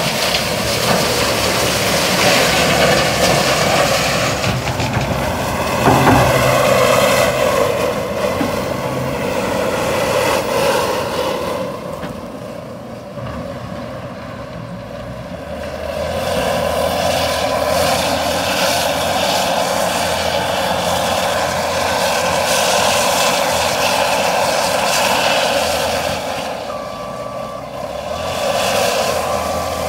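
Large Caterpillar wheel loader's diesel engine working as the machine tips gravel into a steel tipper trailer and drives to the stockpile, its noise rising and falling as it moves. Gravel pours into the trailer body at the start, and there is a single sharp knock about six seconds in.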